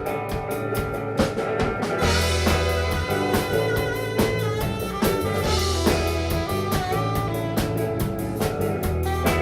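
Live band playing the instrumental opening of a song: a drum kit keeps a steady beat under guitar and sustained low notes. There is a brighter crash at about two seconds and again at about five and a half.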